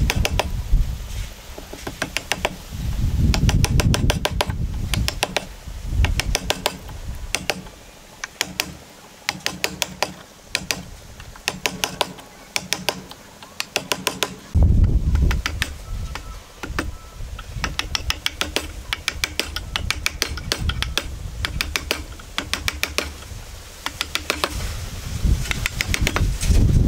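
Steel wood chisel chopping and paring out a joint in hardwood: quick runs of sharp taps on the chisel, broken by heavier scraping as the blade is levered and pushed through the wood.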